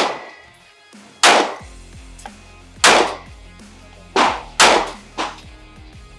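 Handgun shots from a semi-automatic pistol, about five sharp reports spaced roughly a second or so apart, two of them in quick succession near the end, each with a short ringing tail.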